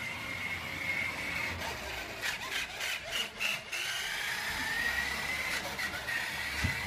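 Electric motor and gears of a remote-control toy dump truck whining steadily as it drives across a wooden floor, the pitch sagging and rising a little with its speed. A quick run of clicks comes about two to three and a half seconds in.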